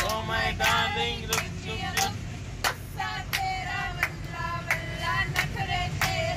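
Several women singing a song together while clapping in time, about three claps every two seconds, over the steady low rumble of a moving train carriage.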